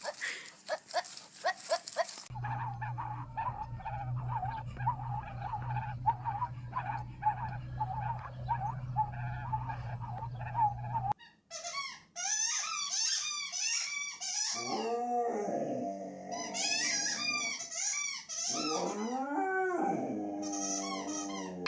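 A run of quick, repeated squeaks over a steady low hum that cuts off suddenly, then a dog whining and howling in drawn-out cries that glide up and down in pitch, some high and some lower.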